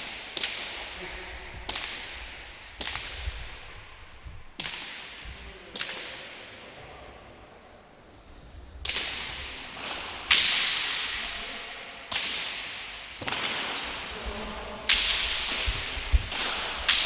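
Hand-pelota rally: a pelota ball struck by bare hands and slamming off the frontón walls and floor, giving a sharp crack about every one to two seconds, each with a long echo. The cracks are loudest from about halfway on.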